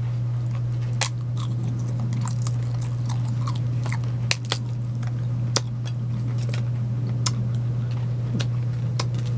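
Crunching and chewing of rosemary crackers: irregular sharp crackles scattered through, over a steady low hum.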